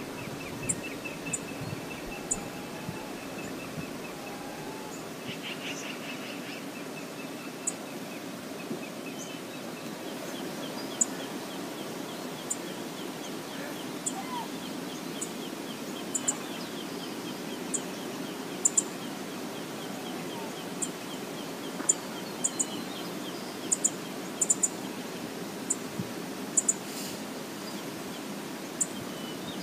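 Steady rush of the Brooks Falls waterfall, with short high-pitched bird chirps scattered irregularly over it and a thin rapid trill in the background.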